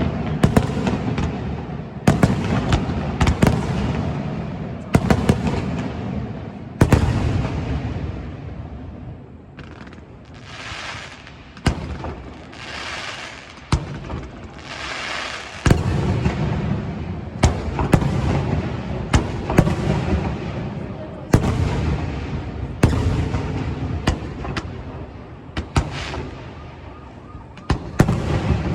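Fireworks display: a rapid series of aerial shell bursts, sharp bangs over a deep rumbling boom. The bangs ease off for a few seconds partway through, then pick up densely again.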